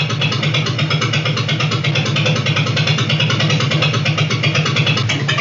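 Gasoline engine running steadily with a fast, even putter.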